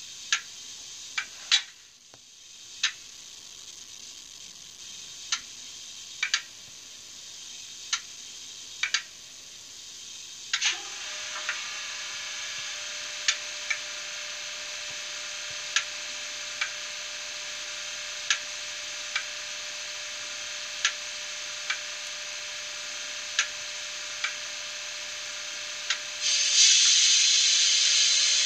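DCC sound decoder in an N gauge Graham Farish Class 20 model playing a Class 20 diesel sound file through its small speaker: sharp clicks every second or two, then about ten seconds in the engine starts up and settles into a steady idle drone with a whine. Near the end a louder hiss comes in over the idle.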